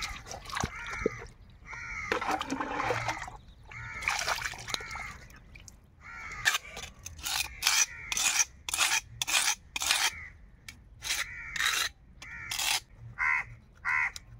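Crows cawing over and over: short harsh caws, a few scattered at first, then a long run of about two a second through the second half.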